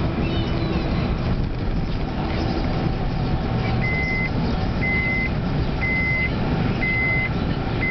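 A car driving slowly, its engine and road noise heard from inside the cabin. About four seconds in, a steady high beep starts, repeating about once a second.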